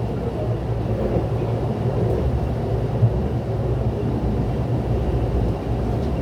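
Steady low rumble of a Mugunghwa-ho passenger train running on the rails, heard from inside the carriage, with a brief knock about three seconds in.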